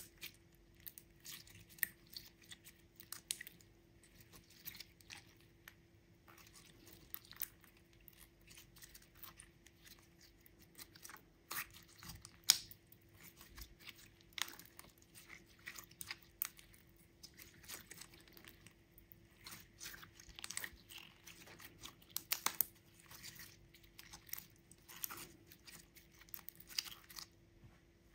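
Clear glitter slime being squeezed, folded and kneaded by hand, giving irregular sticky clicks and crackles, over a faint steady hum.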